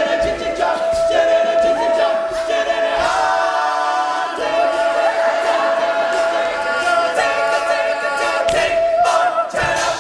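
All-male a cappella group singing, one high falsetto voice holding a long note above the others' shifting chords. The singing stops just before the end.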